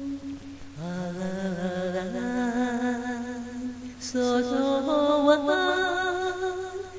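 Slow Japanese enka song: a singer holds a long sung 'aah' over the backing music. The held note steps up in pitch about two seconds in, and a new phrase of the melody comes in partway through.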